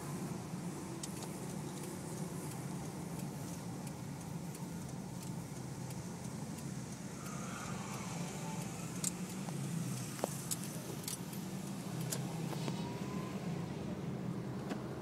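Toyota Rush engine running steadily at idle through an exhaust fitted with a turbo whistler tip, with a couple of faint short whistles and a few sharp ticks.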